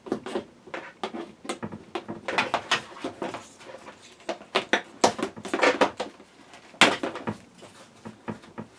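Irregular clicks, clanks and knocks of car-seat frame and trim parts being handled and fitted during reassembly, sharpest about five and seven seconds in.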